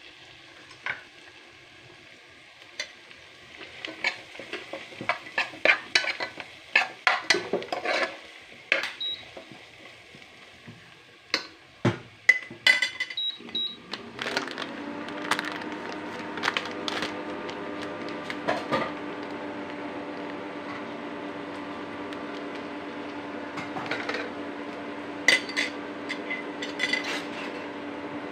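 Spoon stirring food in a metal cooking pot, a run of clinks and scraping knocks against the pot, with light sizzling. About halfway in, a steady hum starts and runs on under a few more knocks.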